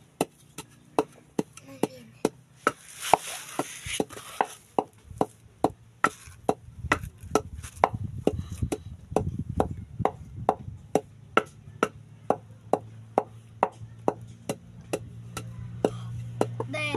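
Wooden pestle pounding in a mortar, steady knocks about twice a second, as chilli and salt are pounded for som tam.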